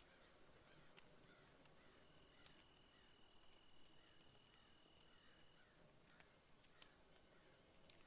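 Near silence: faint room hiss, with faint falling chirps about twice a second and a thin steady high tone for a few seconds in the middle.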